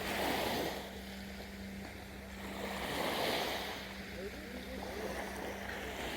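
Sea waves washing in gently, two swells about three seconds apart, over a steady low hum.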